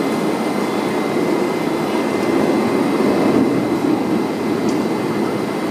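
Subway train (R188 car) standing at the platform with its doors open: a steady hum and rush from its ventilation and onboard equipment, with a faint high steady whine over it.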